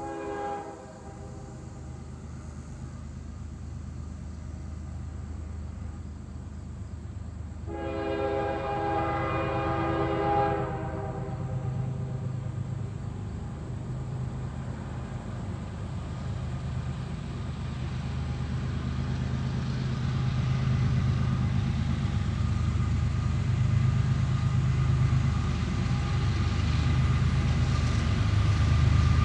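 Diesel freight locomotive approaching: a short horn blast at the start, then a longer blast of about three seconds around eight seconds in, over a low engine rumble that grows steadily louder as it draws near.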